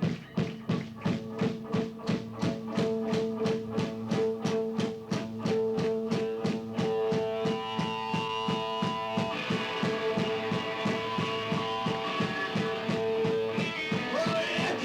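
Heavy metal band playing live: drums and bass drive a steady pulse of about four beats a second under a held electric guitar note, and the sound fills out with more sustained guitar notes about halfway through.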